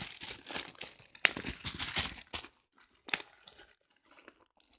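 Plastic wrapping around a remote control and manual crinkling and tearing as it is pulled open, in dense irregular crackles that thin out over the second half, with a sharp snap about a second in.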